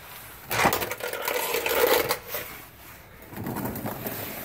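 Close scraping and rustling with small clicks, in two bursts, from someone shifting about under a truck on a concrete garage floor while moving the camera.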